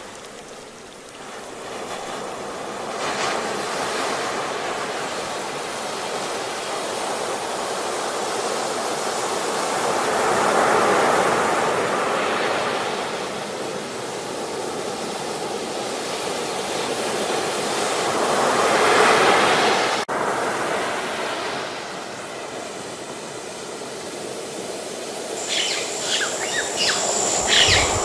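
Ocean surf: waves washing in as a steady rush that swells twice, about ten seconds in and again near twenty seconds. Near the end a high, rapid chirping starts over the surf.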